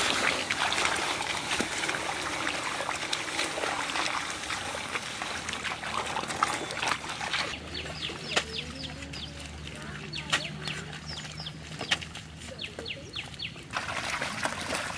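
Muddy water splashing and squelching as a pair of bullocks drags a wooden plough through a flooded paddy field. About halfway through the splashing drops back and birds chirp over it for several seconds, then the splashing returns near the end.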